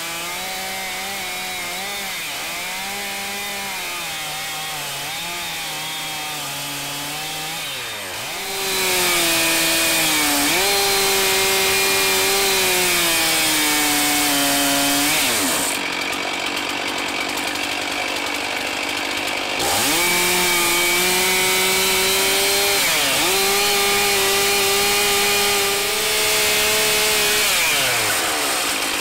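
Petrol chainsaw cutting a notch into a heavy timber beam, the engine pitch sagging and recovering as the chain bites. It revs up hard about a third of the way in, drops back about halfway, revs up again a few seconds later and drops back near the end.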